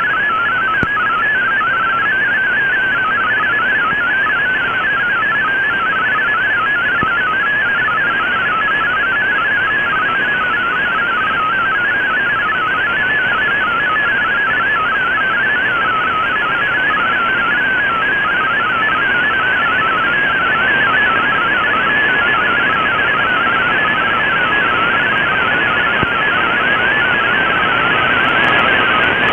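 Shortwave MFSK32 digital text signal received by an Icom IC-R8600: a fast warble of tones hopping up and down within a narrow band, over steady static hiss.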